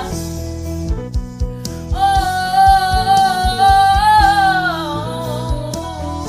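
Worship song: over a soft instrumental backing with guitar and a low, steady beat, a solo voice comes in about two seconds in and holds one long note, gliding down before it fades out.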